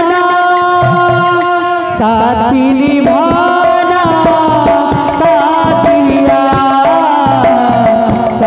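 Sambalpuri kirtan music: a held, wavering sung melody through a microphone over fast, steady hand-played barrel drums.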